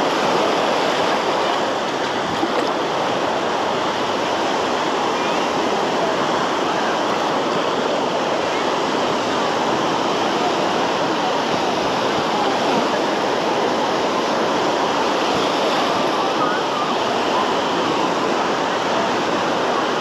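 Small waves washing onto a sandy shore in a steady rush of surf, with the voices of a beach crowd faintly behind.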